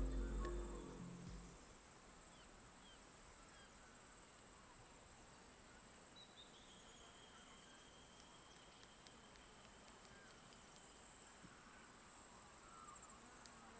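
Faint rural outdoor ambience: a steady high-pitched insect drone with a few scattered faint chirps, after music fades out in the first second or two.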